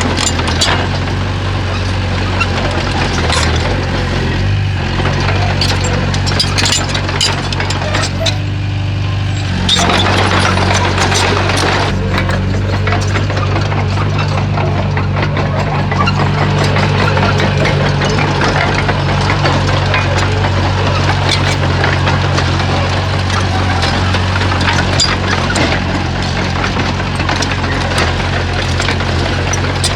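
Komatsu bulldozer's diesel engine running steadily under work, its note rising about ten seconds in, with scattered metallic clanks and knocks over it.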